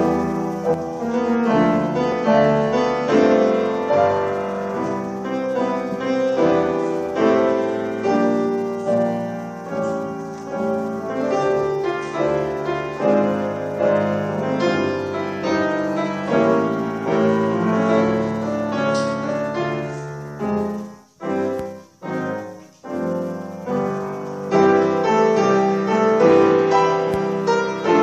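Grand piano played four hands by two pianists: a piece of quick, dense notes. About three quarters of the way through it breaks into a few short, separated chords with brief gaps, then the playing resumes louder.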